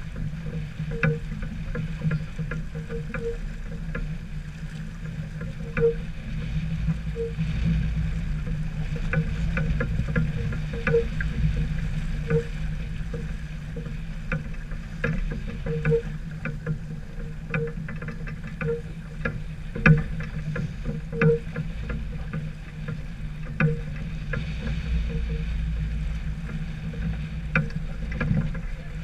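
Sounds aboard a sailboat under way: a steady low rumble with scattered light clicks and knocks throughout.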